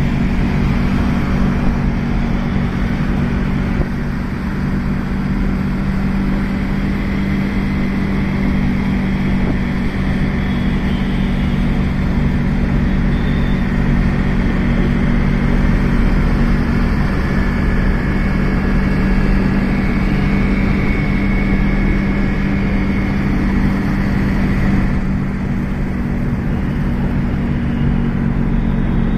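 Steady car engine drone and tyre and road noise, heard from inside a taxi's cabin while driving in traffic.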